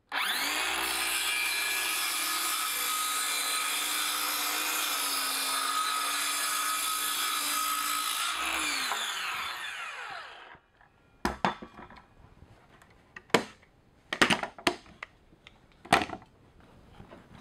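Ryobi cordless circular saw starting up and ripping a strip off the edge of a cedar fence board for about eight seconds, then winding down with a falling whine once the trigger is released. After it, a handful of sharp clicks and knocks as the quick-release bar clamp is worked.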